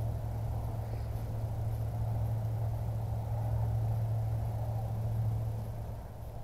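A steady low hum that eases a little near the end.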